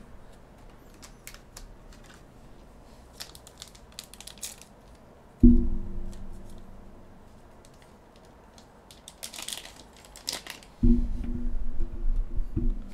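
Microphone handling noise as the mic is moved and repositioned: a sudden low bump about halfway through and a longer rumbling stretch near the end that cuts off suddenly. Between them come light crinkling and clicking of foil card-pack wrappers and cards being handled.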